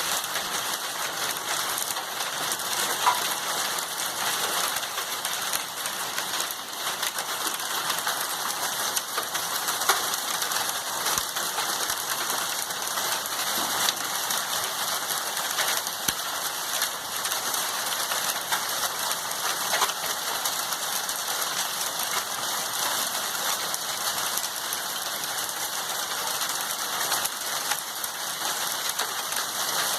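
Heavy rain falling steadily, with many small sharp ticks and clicks scattered through it, as of hail striking hard surfaces.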